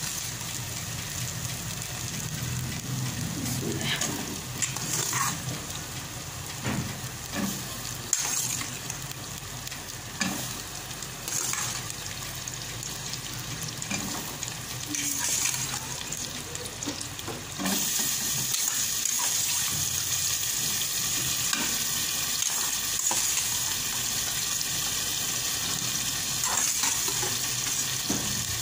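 Boiled white chickpeas being stirred with a metal ladle into frying masala in a metal pot: a steady sizzle with scattered scrapes and knocks of the ladle on the pot. The sizzle grows louder about two-thirds of the way through.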